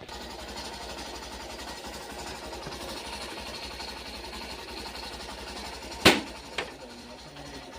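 Hero Super Splendor BS6 motorcycle's single-cylinder engine idling steadily with a fast even beat, and a sharp knock about six seconds in followed by a smaller one.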